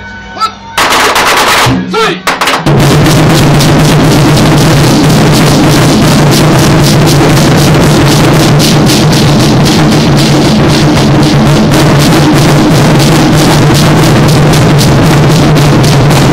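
A troupe of large Chinese war drums beaten together. After a loud opening burst, from about three seconds in it settles into a fast, continuous, very loud roll of strokes with a steady deep drum tone under it.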